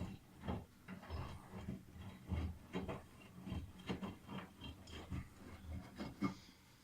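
Miele Softtronic washing machine drum turning through a wash, the laundry tumbling with irregular soft knocks over a low motor hum, stopping near the end.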